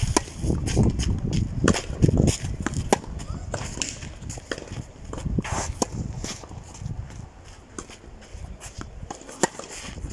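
A tennis rally on a clay court: sharp pops of racket strings striking the ball at intervals, alternating between the near and far ends, over the scuff and shuffle of footsteps on clay.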